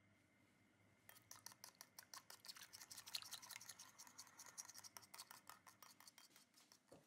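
A spoon stirring an olive-oil and soy-sauce dressing briskly in a small glass bowl, clicking and scraping against the glass several times a second. The stirring starts about a second in and stops just before the end.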